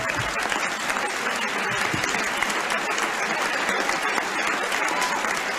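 Large audience applauding steadily, a dense, unbroken clapping that closes a performance.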